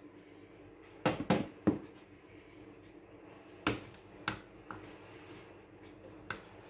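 Sharp taps and clicks of a hand on a high-pressure sodium street light fixture's lens and housing: three in quick succession about a second in, then four more spaced out. Under them runs a steady low hum from the lit lamp's ballast.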